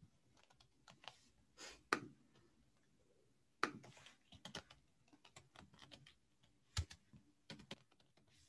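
Typing on a computer keyboard: irregular runs of key clicks, with a few sharper, louder strikes about 2, 3.5 and 7 seconds in.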